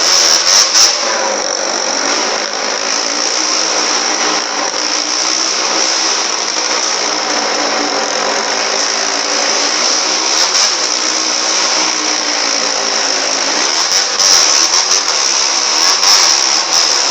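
Motorcycle engine running hard around a wall-of-death barrel, its pitch rising and falling slightly as the rider circles.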